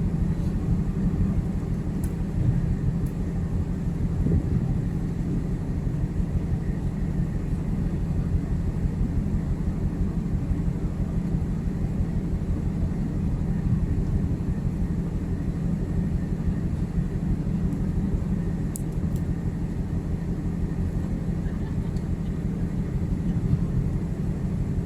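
Steady low drone of a ship's onboard machinery running, an even hum with a rumble underneath.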